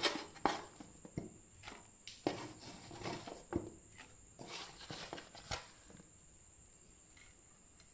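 Fried eggplant pieces being dropped by hand into an earthenware clay pot of thick spice sauce: a run of irregular soft taps and clicks, stopping about five and a half seconds in.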